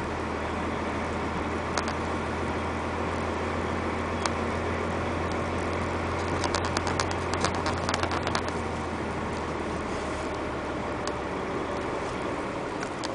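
Truck engine running with a steady low drone, heard from inside the cab as it rolls slowly across gravel. Around the middle, a couple of seconds of rapid sharp clicks and ticks.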